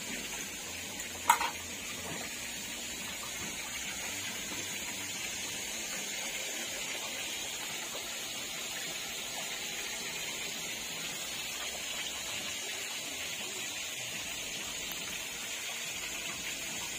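Steady high hiss with a single sharp click just over a second in.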